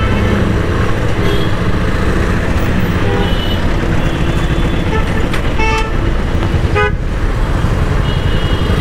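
Road traffic heard from a motorcycle in a jam: a steady engine and road rumble with repeated short vehicle horn toots from the surrounding traffic.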